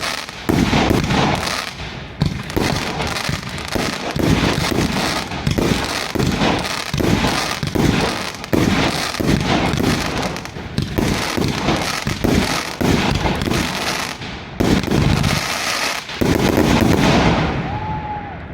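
Svea 117X50 firework cake firing a rapid, dense run of shots with hefty bangs and crackle. The final volley dies away near the end.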